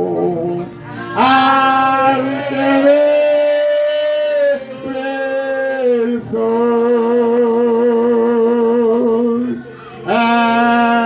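A man singing a slow worship chorus through a microphone, drawing out long held notes with a slight waver and short breaks between phrases.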